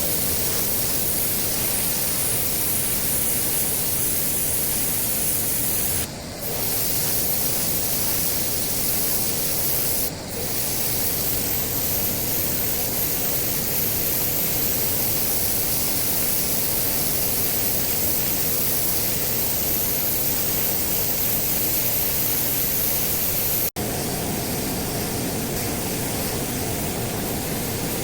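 Pressure washer spraying a concrete driveway: a steady hiss of high-pressure water, with two brief dips in the spray and an abrupt break near the end.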